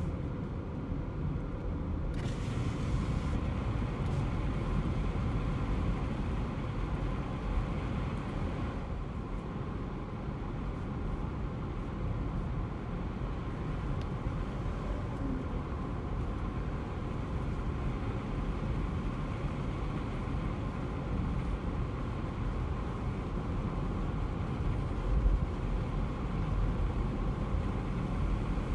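Car driving along a road: a steady low rumble of engine and tyres, with one brief louder bump near the end.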